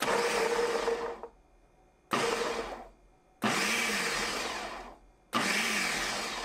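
Ninja Smart Screen Duo blender's 1400-peak-watt motor base pulsing, its blade chopping chickpeas in the pitcher: four short bursts, each starting abruptly and dying away as the blade spins down, with near silence between them.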